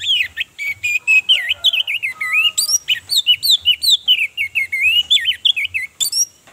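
Orange-headed thrush singing one long, fast song phrase of quickly changing, sliding notes that starts suddenly and breaks off after about six seconds.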